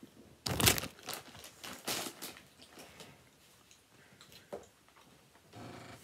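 Crinkling and crunching while eating Doritos chips and a sub, with a few loud bursts in the first two seconds and then quieter chewing.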